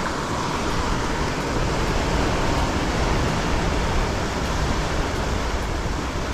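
Sea waves breaking and washing over a rocky shore in a big swell, a steady rushing noise, with wind on the microphone.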